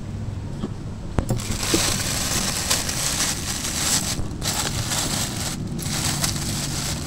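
Thin plastic bag of flour crinkling and rustling as it is handled and opened, starting about a second in, with two short pauses.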